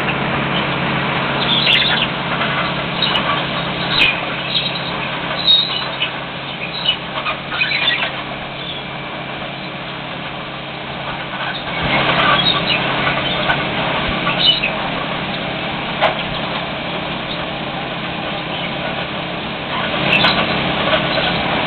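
LORAM rail ballast cleaner at work: its engines run with a steady hum under a noisy clatter, with scattered sharp knocks, as the toothed bucket excavating wheel digs out the track ballast. The din swells about twelve seconds in and again near the end.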